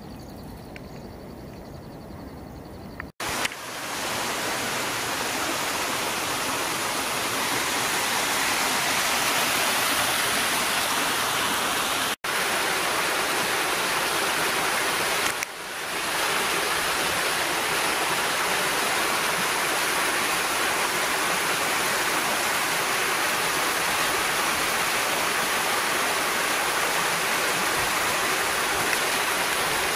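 Steady rush of water from a small waterfall and rocky stream, cutting in abruptly about three seconds in after a quieter stretch of open-air ambience.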